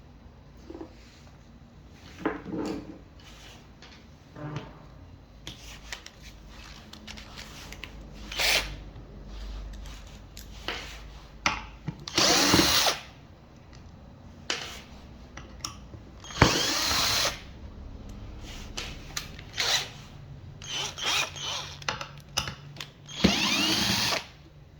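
Power drill running in short bursts of about a second, three times loudly, with clicks and knocks of handling in between.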